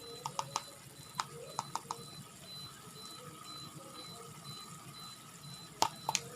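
Green beans cooking in a pan with a low steady hiss, and a metal spatula clinking against the pan in short clusters of clicks, the loudest near the end.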